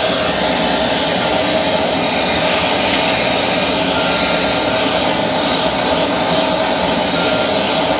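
Handheld gas torch flame burning steadily with a continuous rushing roar as it is played into a crucible.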